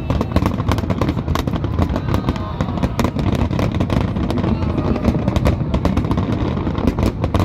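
Aerial fireworks display: many shells and crackers bursting in rapid succession over a continuous low rumble.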